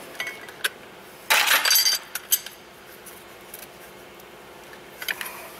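Metal hand tools clinking on the engine's valve gear: a short metal clatter about a second and a half in, a sharp clink just after, then only a few faint clicks as a wrench is fitted to the injector adjusting screw's jam nut.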